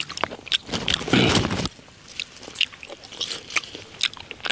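A person eating cooked snails noisily: a long slurp about a second in, with smacking and short clicking sounds throughout.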